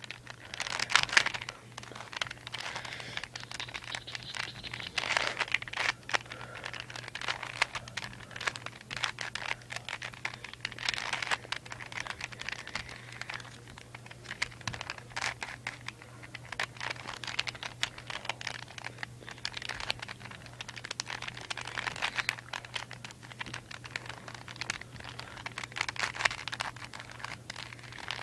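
Rubik's Cube being twisted by hand: quick runs of plastic clicking and rattling as the layers turn, coming in louder bursts every few seconds.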